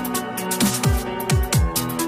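Electronic background music: deep kick-drum hits that fall in pitch, about two a second, over held bass notes and a steady hi-hat pattern.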